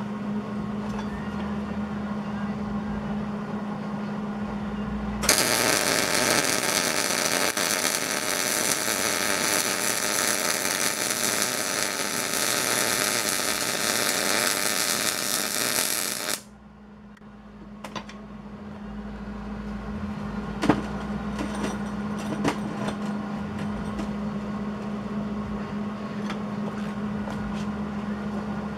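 MIG welder's arc running for about eleven seconds, starting and stopping abruptly, as weld is laid on to build up the gear's broken teeth. Before and after it, a steady machine hum with a few sharp ticks.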